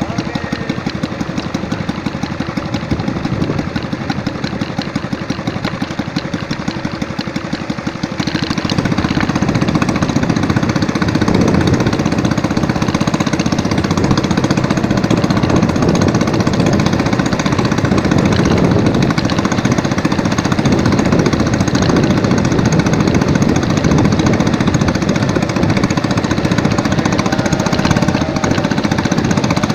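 A small engine running with a rapid, even knocking beat, growing louder about eight seconds in.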